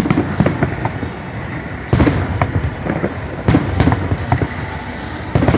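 Fireworks exploding: four deep booms roughly a second and a half to two seconds apart, each trailing off in a low rumble, with sharp crackling pops in between.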